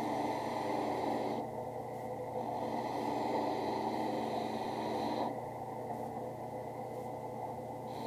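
Drill press running with a sanding drum while a leather holster's edge is sanded against it: a steady motor hum under a hiss of abrasive on leather. The hiss drops away twice, briefly about a second and a half in and for longer from about five seconds.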